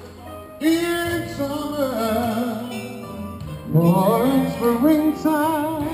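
A man singing into a handheld microphone, starting about half a second in with sustained, sliding notes, growing louder in the second half and ending on held notes with vibrato.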